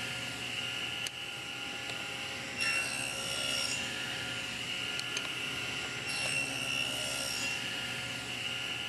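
SawStop table saw running steadily while its blade cuts a shallow groove along thin hardwood strips fed through with a push block. The cutting sound swells twice, about a third of the way in and again near the three-quarter mark, over the motor's steady whine.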